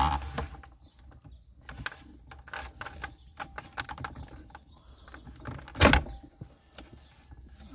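Small plastic clicks and rustling from handling the wiring connector on the back of a car's cigarette-lighter socket, with one loud sharp click about six seconds in as the connector comes off.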